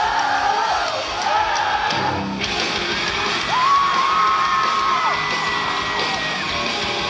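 A rock band playing live through the PA, with electric guitars, while fans scream long, high whoops over the music.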